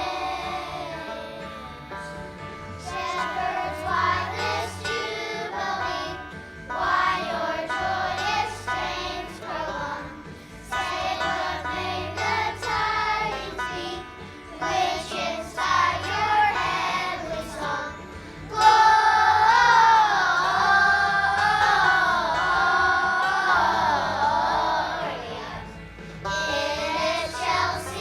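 Children's choir singing a Christmas carol with instrumental accompaniment; the singing swells louder in a long held passage about two-thirds of the way through.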